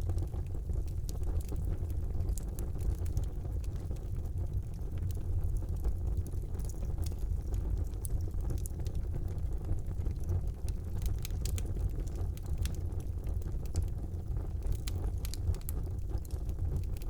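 Wood fire burning in a fireplace: a steady low rumble of the flames with scattered small crackles and pops.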